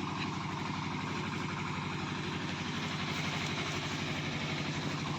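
An engine or motor running steadily at constant speed, with an even rapid pulse.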